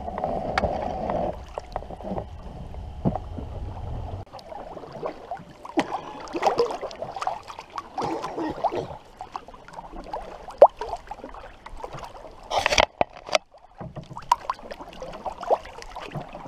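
Canoe paddling: paddles dipping and pulling through lake water, with water swishing along the hull and scattered sharp knocks against the canoe. There is a low rumble for the first four seconds and one loud knock or splash about twelve and a half seconds in.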